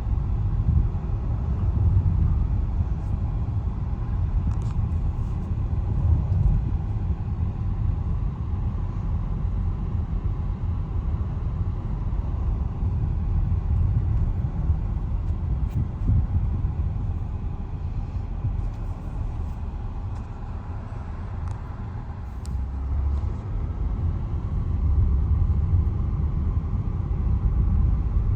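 A car driving along: steady low road and engine rumble heard from inside the cabin. It eases somewhat about two-thirds of the way through, then builds again near the end.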